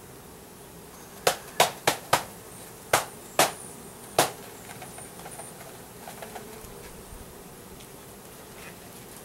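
Seven sharp knocks on a wooden bee package, tapped to shake the bees down into the hive, starting about a second in as a quick run of four and then three more spaced out. Under them, a steady buzz of Russian-Carniolan honey bees.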